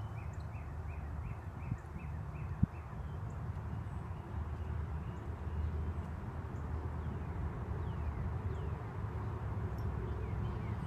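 Spinning fishing reel being cranked, ticking evenly about two or three times a second, then stopping about three seconds in, with one sharp click as it stops. A steady low rumble runs underneath, and a few bird chirps come near the end.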